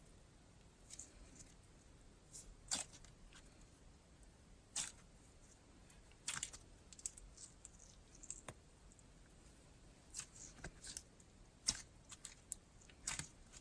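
Thick jelly slime, stiff from the fridge, being squeezed and stretched by hand, giving off scattered faint pops and clicks.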